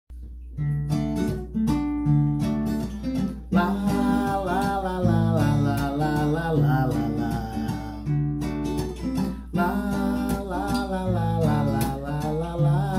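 Acoustic guitar strummed in a rhythmic pattern, joined about three and a half seconds in by a man singing a melody over it. The guitar has a short break a little past the middle before the strumming and singing carry on.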